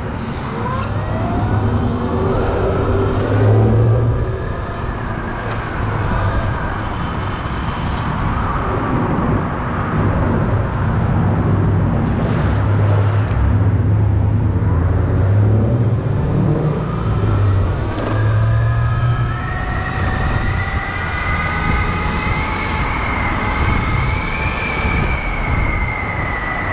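Sur Ron electric dirt bike riding at speed, its electric motor whining and rising in pitch as it accelerates, over a steady rush of wind on the microphone and tyre noise. The whine climbs near the start and again in the last third, then holds high.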